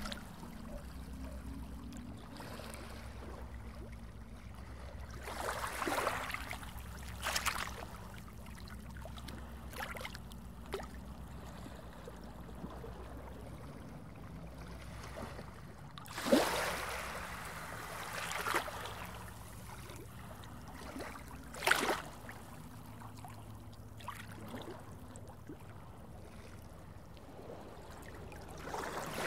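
Underwater ambience: a steady low water rumble, broken by several short water swooshes, the loudest two past the middle.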